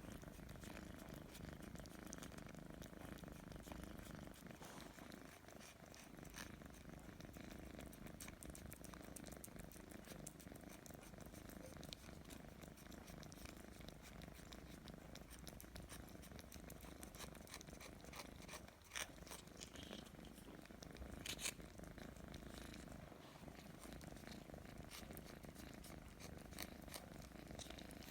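Domestic cat purring steadily and softly, close up, with a couple of small clicks about two-thirds of the way through.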